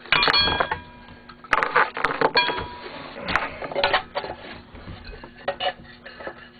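Metal engine parts and tools clinking and clattering in several bursts, some leaving a short metallic ring, as a snowmobile engine is worked on by hand.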